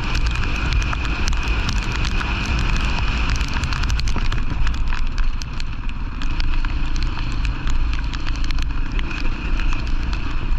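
Wind rumbling on the microphone, with scattered crackles and a steady high hiss. A faint low drone joins about two-thirds of the way through.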